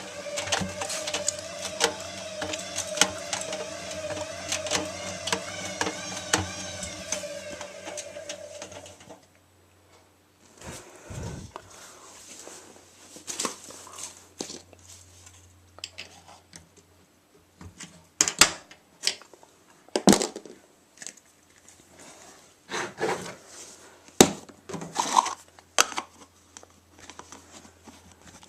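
Zanussi washing machine motor humming with a wavering whine and a rapid rattle of small clicks, cutting off about nine seconds in. Scattered sharp clicks and knocks follow.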